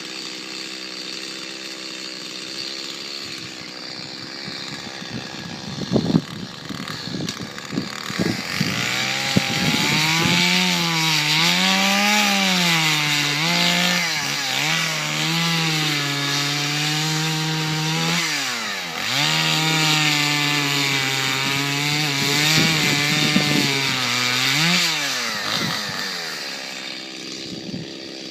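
Two-stroke chainsaw running at low speed, a few sharp knocks about six seconds in, then revved up and cutting into dead ash wood, its engine pitch dipping and recovering under load for most of the time before easing off near the end.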